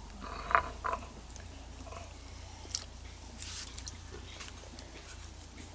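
A stone muller scraping and knocking on a flat stone grinding slab (shil-nora), with two sharp knocks about half a second and a second in, then a short rustle of dry sticks being handled.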